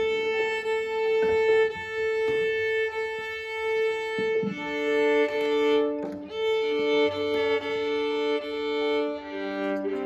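Viola played solo with the bow: a slow line of long held notes, often two strings sounding together.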